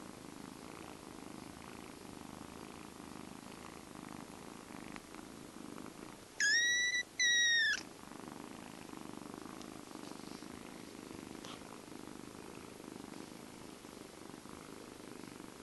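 Kitten purring steadily, with two short, high-pitched mews one right after the other about six and a half seconds in.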